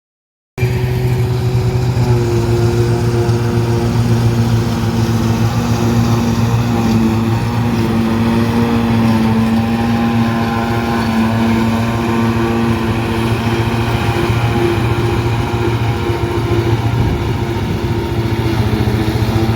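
Tractor engine running steadily at an even speed, starting and cutting off abruptly.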